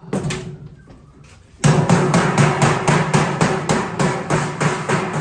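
A hammer tapping a sheet-metal seam together, the male edge being driven into the female lock of a unit box. A few separate taps, then about a second and a half in a fast, steady run of strikes, about five a second.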